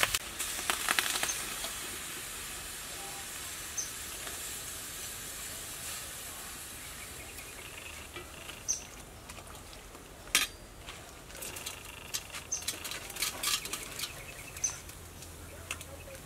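Pot of soup with water spinach steaming on the stove with a faint steady hiss, while a metal ladle stirs it and gives a few light clinks against the aluminium pot. A brief rustle at the very start.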